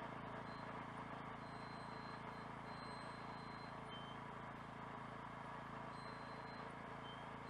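Engine running steadily at an even speed, with a faint high whine above it.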